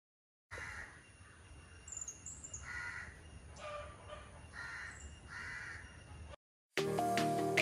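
Crows cawing several times against outdoor ambience, with a few faint high bird chirps. Background music starts near the end.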